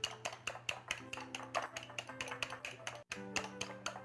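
Background music with sustained notes, over a fork beating eggs in a glass bowl, clicking rapidly and evenly against the glass, about six clicks a second.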